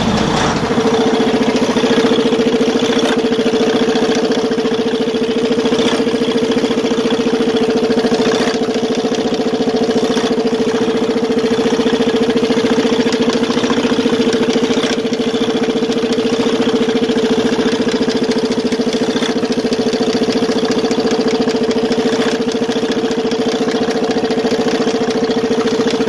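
Freightliner Cascadia's Detroit DD-series inline-six diesel idling steadily with a fast, even pulse, running with the engine noise that was traced to a broken piston.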